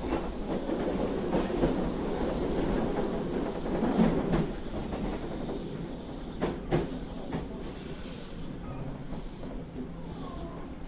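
Running noise of an Osaka Municipal 66 series subway car (early-build, GTO-VVVF), heard from on board: a steady hissing rumble of the train under way, with a couple of thumps about four and six and a half seconds in.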